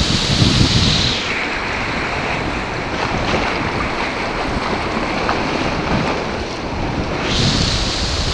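White-water river rapids rushing around a raft, with wind rumbling on the microphone at the start and again near the end. About a second in the rush turns duller, and it brightens again near the end.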